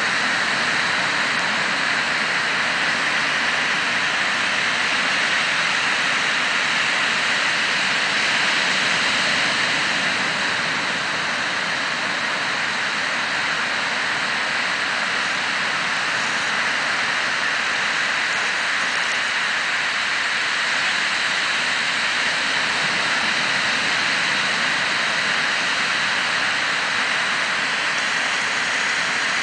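Ocean surf breaking and washing onto the beach: a steady, continuous rushing hiss of waves.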